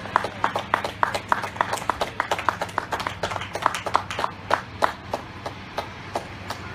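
Hand clapping, a quick steady run of about four claps a second that thins out and stops about five seconds in, over a low steady hum.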